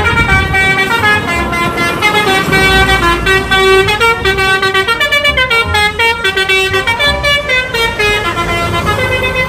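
Bus telolet horn, a multi-note air horn, playing a stepping melody of held notes that change pitch every half second or so. The bus engine runs low underneath.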